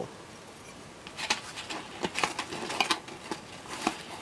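Hands handling items in an open cardboard box: after about a second of quiet, a run of irregular light taps, clicks and rustles.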